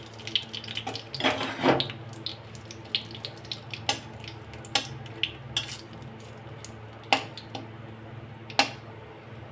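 A flat metal spatula stirs bay leaves and a dried red chilli in hot oil in a metal kadai. It knocks and scrapes against the pan about seven times at uneven intervals, over a light sizzle of the spices frying.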